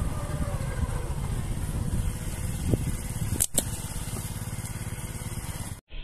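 Steady low rumble of wind and handling noise on a handheld microphone outdoors, with two sharp clicks about three and a half seconds in.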